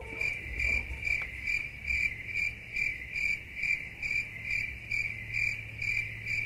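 A cricket chirping steadily, about two and a half chirps a second, over a faint low hum.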